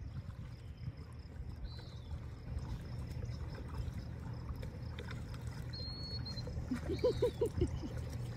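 A kayak paddle dipping and dripping water as it strokes slowly, over a steady low rumble. A bird chirps twice.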